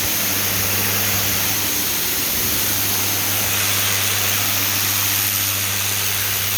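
Pressure washer running, its high-pressure water jet hissing steadily against slate pavers over a steady motor hum.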